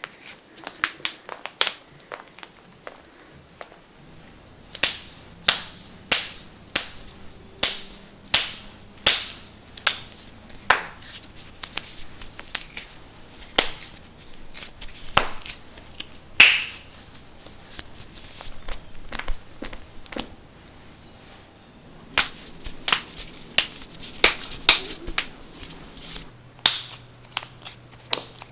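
Knuckles cracking: a long series of sharp pops from stiff finger joints, faint at first, louder from about five seconds in, with a quick flurry of pops near the end.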